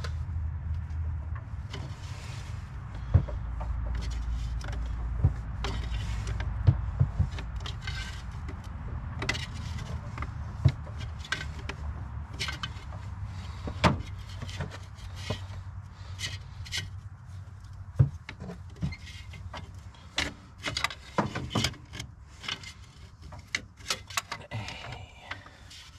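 Hands working the fuel filter off the top of a 7.3 IDI diesel engine: scattered clicks, taps and rubbing of metal fittings and the filter housing. A steady low rumble runs under it, weaker in the second half.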